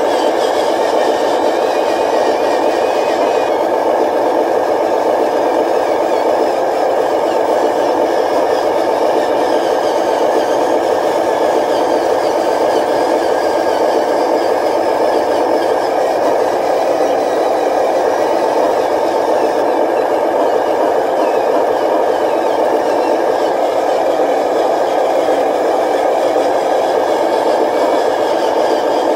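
Steady engine-like drone of radio-controlled dump trucks driving.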